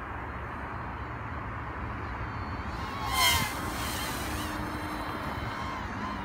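Cheerson CX-30S mini quadcopter's propellers whining briefly as it flies close past about three seconds in, the pitch dropping as it goes by, over a steady low rumble.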